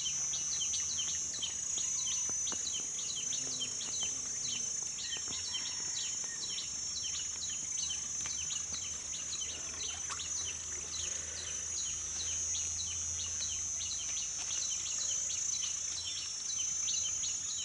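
Garden ambience: a steady high-pitched insect drone, with short chirps repeated evenly about three times a second throughout.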